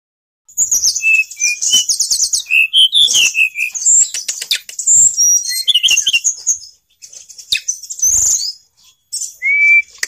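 Caged tledekan gunung, a blue-and-orange flycatcher, singing gacor: a fast, varied run of high whistles, chirps and trills that starts about half a second in, with short pauses near seven and nine seconds.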